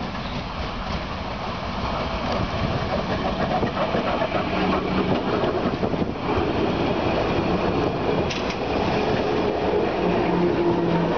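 HÉV MIXa electric multiple unit arriving and rolling past close by, its wheel-on-rail rumble growing louder as it nears. Steady humming tones come in about halfway and grow stronger near the end.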